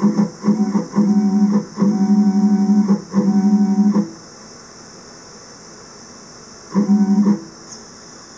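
Stepper motors of a Dyna 3000 CNC lathe whining at one steady pitch as the tool is jogged toward the stock: a run of short moves that start and stop abruptly through the first four seconds, then one brief move about seven seconds in.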